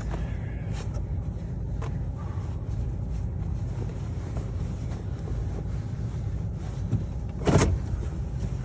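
Muffled, steady low rumble of a vehicle running, with a few light clicks and a brief loud rustle about seven and a half seconds in.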